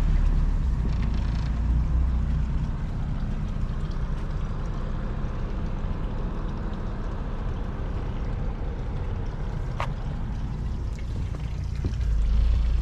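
Boat engine running steadily with a low, even rumble, with one sharp click about ten seconds in.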